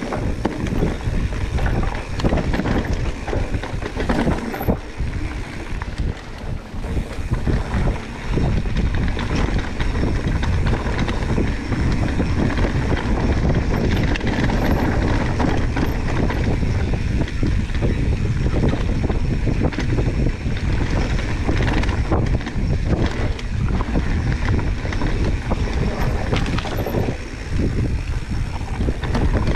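ProPain Tyee full-suspension mountain bike riding down a dirt trail: wind rushing over the action-camera microphone, with tyre roll and many small knocks and rattles from the bike over bumps. The noise eases briefly about six seconds in.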